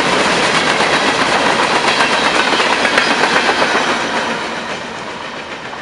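Freight train's open-top hopper cars rolling past, wheels clacking over the rail joints. The sound falls away from about four seconds in as the last car clears.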